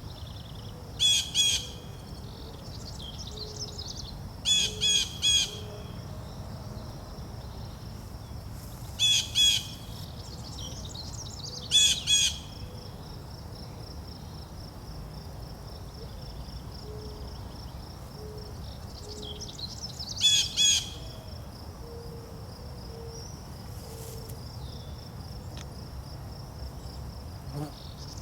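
Songbirds calling in short clusters of two or three quick, high chirping notes, about six times, over a steady, high-pitched insect trill.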